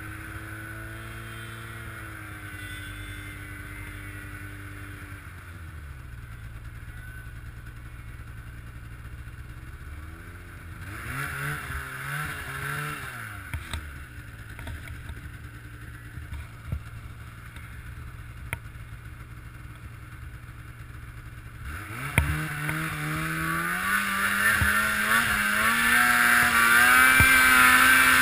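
Polaris 800 Dragon snowmobile's two-stroke twin engine easing off and running low, blipped briefly about halfway through, then revving up hard near the end as the sled accelerates up a steep slope, loudest at the end.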